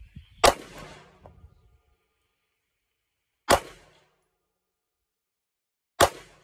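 Three handgun shots fired singly, about three seconds apart, each a sharp crack with a short ringing tail.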